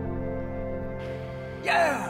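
Background music with long held tones; near the end a man gives a short, loud shout.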